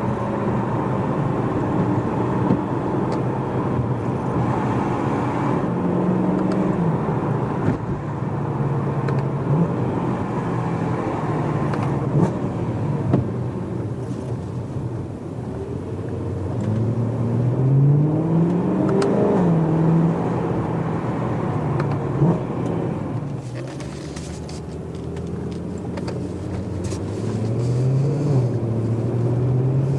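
BMW E92 M3's V8 with a decat X-pipe and stock rear silencer, heard from inside the cabin while driving. The engine note rises and falls with the revs, with a long climb about two-thirds through and another near the end, and a few short clicks along the way.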